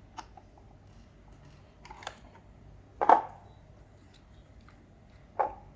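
A few separate plastic clicks and knocks from hands working on a 4WD RC car, pulling its body clips. The loudest clack comes about three seconds in, with another near the end.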